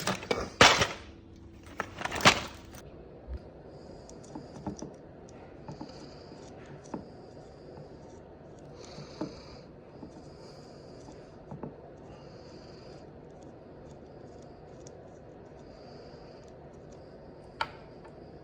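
Two loud bursts of clattering in the first couple of seconds, then scattered light clicks and knocks: parts and tools being handled during a go-kart carburetor install.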